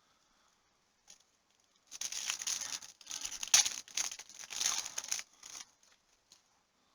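Plastic-foil trading card pack wrapper crinkling as it is torn open, a burst of crackling and tearing that starts about two seconds in and stops a little before the end.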